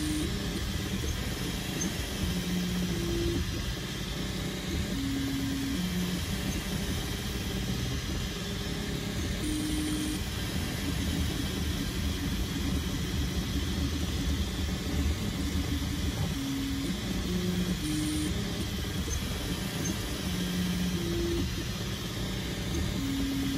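3D printer with an E3D Hemera direct-drive extruder printing: its stepper motors sound short low tones that jump to a new pitch every second or so as the head changes moves, over a steady whir of cooling fans.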